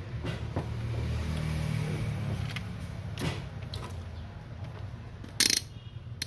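Small clicks and knocks of a circuit board and tools being handled on a workbench, with one sharp clack about five and a half seconds in, over a low steady rumble.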